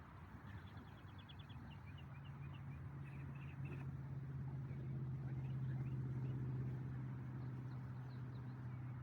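Low, steady hum of a distant engine swelling and then easing off, with a small bird giving a quick trill and scattered chirps over it early on.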